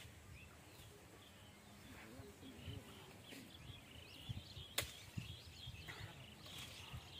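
Faint outdoor ambience with scattered high chirps, a soft low rumble and a single sharp click about five seconds in.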